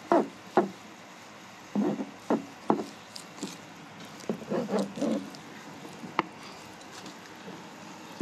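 Fillet knife working on a plastic cutting board as the bloodline strip is sliced off a porgy fillet: a series of short, irregular knocks and scrapes of the blade and the wet flesh against the board.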